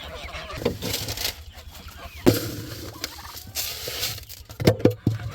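A domestic turkey gobbling amid other poultry calls, with a few sharp knocks near the end.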